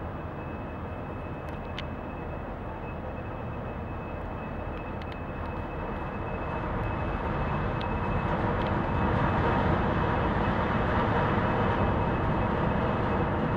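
Steady drone of the hopper dredger Reimerswaal's engines and machinery as the ship passes close by, with a thin high whine over it. It grows louder from about seven seconds in.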